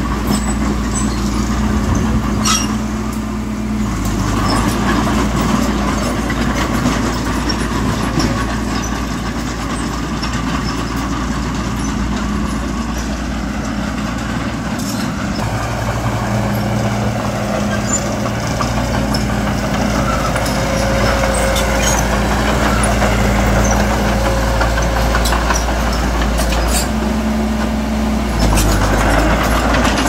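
Diesel engines of heavy earthmoving machinery running. The engine hum shifts between steady levels several times, with a few sharp clicks.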